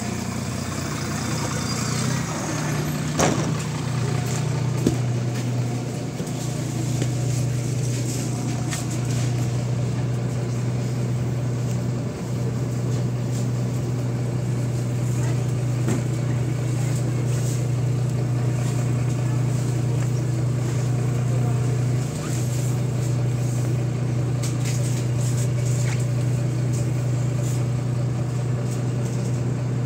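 MAZ-107 city bus's diesel engine idling steadily, a constant low hum heard from inside the bus with the door open; the hum drops slightly in pitch a few seconds in.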